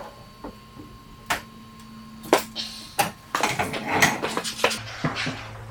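A few sharp metallic clicks, then a stretch of clanking and rattling about three seconds in, as a steel rolling toolbox cabinet is tipped back upright onto its casters.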